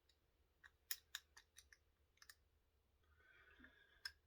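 Faint clicks and taps of small crossbow parts being handled while fitting a screw into the frame, with a brief soft scrape near the end.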